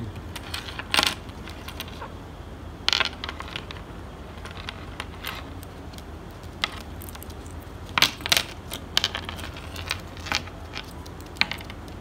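A small bunch of metal keys on a ring with a car key fob, clinking and jangling against a tabletop as ringneck parakeets pick it up and pass it between their beaks. The clinks come in short scattered bursts, the loudest about eight seconds in.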